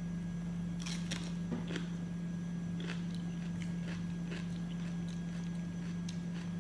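Crisp snapping and crackling of raw green bell pepper being torn apart by hand: a scatter of short clicks, strongest about a second in. A steady low hum runs underneath.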